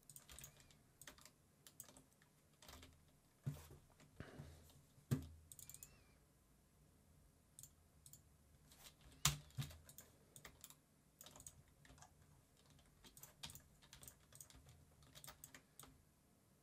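Faint, scattered clicks and taps of a computer keyboard and mouse being worked, the sharpest about three and a half, five and nine seconds in.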